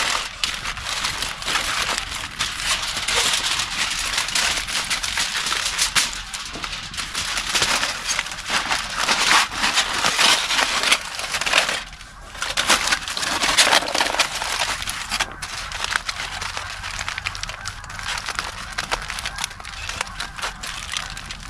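Aluminium foil being crinkled and folded by hand, a dense, irregular crackling that eases off briefly about halfway through.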